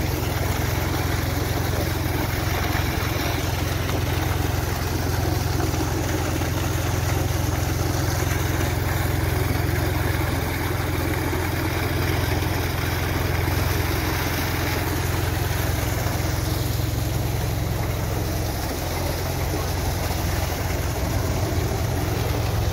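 Well water gushing steadily from a pump's outlet pipe and splashing into a stone basin, over the steady low running of the water pump's motor.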